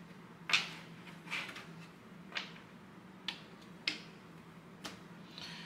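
Trading cards being flipped through one at a time, each card giving a short, sharp snap, about six in all, over a low steady hum.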